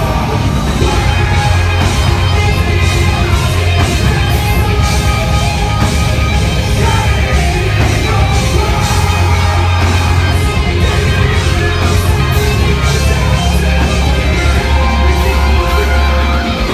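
Live metalcore band playing loud: distorted electric guitars, bass and drums with screamed vocals, the low end very heavy.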